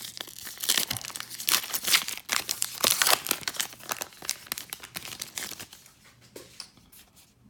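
Baseball card pack wrapper being torn open and crinkled by hand, a dense run of crackling and tearing that thins out and stops about six seconds in.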